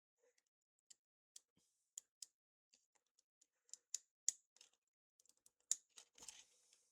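Faint, irregular small clicks and taps of small tools working on the metal and plastic parts inside an opened iPhone, with a short scrape near the end.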